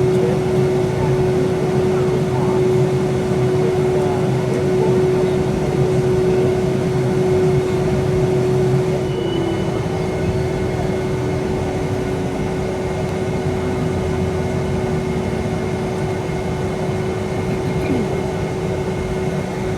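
Steady cabin noise of a Boeing 757-200 taxiing after landing: the engines at idle and the cabin air system make an even hum and rush with a steady droning tone. It drops slightly in level about nine seconds in.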